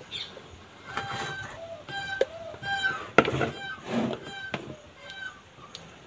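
A run of short, pitched animal calls in the background, several in a row, with a sharp click about three seconds in.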